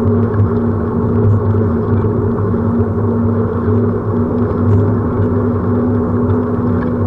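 Steady rolling rumble of a camera travelling along asphalt behind a cyclist, with a constant low hum.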